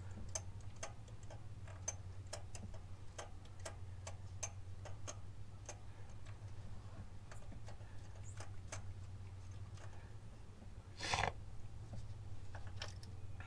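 Hand ratchet clicking one tooth at a time as it winds a spark plug into the cylinder head, with sharp ticks about two a second that thin out and stop. A brief rustling handling noise about eleven seconds in, over a steady low hum.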